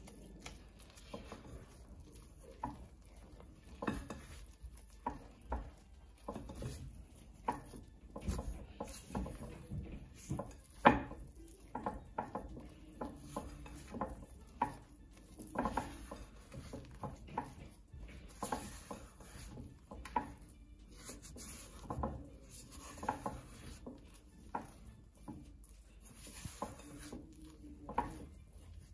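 Silicone spatula stirring and scraping a shaggy flour-and-water dough in a glass mixing bowl: irregular soft knocks and scrapes against the glass, with one louder knock about eleven seconds in.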